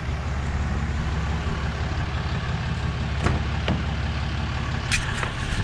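Truck engine idling steadily, with a few light knocks or clicks about three seconds in and again near the end.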